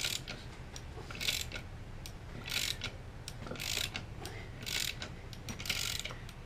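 Ratchet wrench clicking in repeated strokes, about one a second, as it turns the forcing screw of a C-frame ball joint press to push an upper ball joint out of an A-arm.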